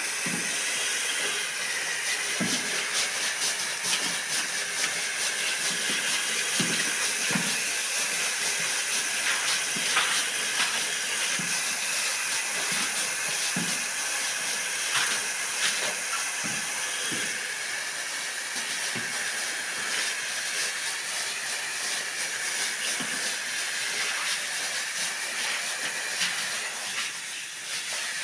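Steady hiss of water spraying onto a small wet rug, with a stiff push broom scrubbing the soaked pile in irregular strokes.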